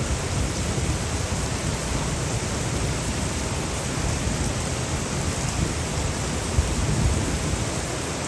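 Steady rain falling, an even hiss with a low rumble underneath that swells slightly near the end.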